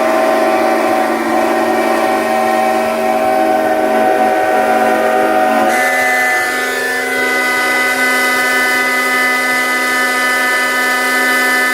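Many steam whistles on steam traction engines and stationary steam engines blowing at once, a loud sustained chord of steady tones. About halfway through, the chord shifts to a different set of pitches as some whistles drop out and others come in.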